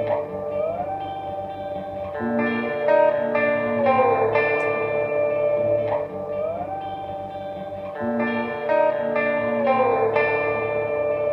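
Electric guitar played through Earthquaker Devices modulation pedals, the Sea Machine chorus engaged: sustained notes that slide smoothly up and down in a phrase repeating about every six seconds.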